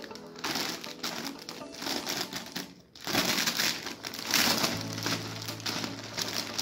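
Clear plastic packaging bag crinkling and rustling in bursts as the pieces of a wall clock inside it are lifted and handled, with a short pause about three seconds in.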